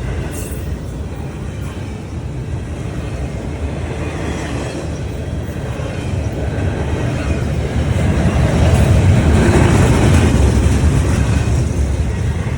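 A train going by: a steady rumble of wheels on the rails that swells about eight seconds in, then eases near the end.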